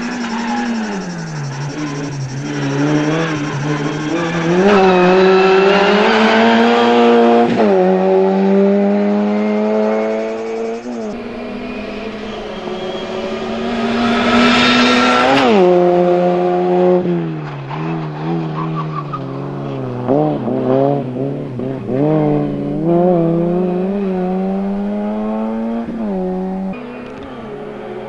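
Small hatchback race car's engine revving hard through a cone slalom. The pitch climbs and then drops sharply at each upshift, loudest as the car comes close, then rises and falls quickly several times as the driver lifts and accelerates between the cones.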